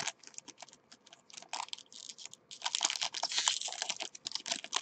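Trading-card pack wrapper crinkling and cards being handled: a run of quick crackles and clicks, densest from about two and a half seconds in.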